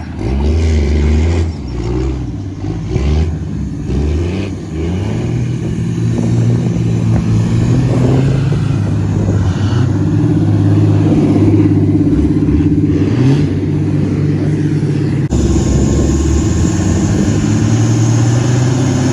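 A pickup truck engine running under load in snow, its revs rising and falling at times and otherwise holding steady, with an abrupt change in the sound about fifteen seconds in.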